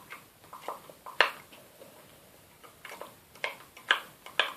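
Scattered light clicks and knocks of kitchenware, a spoon against a mug, while water is added to a runny mug-cake batter. There is one sharp knock about a second in, then a quicker run of four or five near the end.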